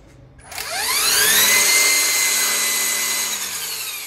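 Ridgid cordless brushless string trimmer's electric motor spinning up with a rising whine about half a second in, running steadily at a high whine, then winding down with a falling whine near the end as the trigger is let go.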